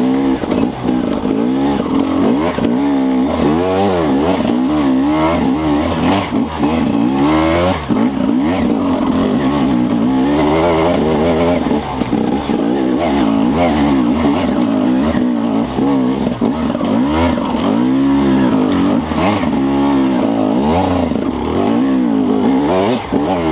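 Enduro dirt bike engine under constant throttle changes, revving up and down over and over so the pitch keeps rising and falling about once a second.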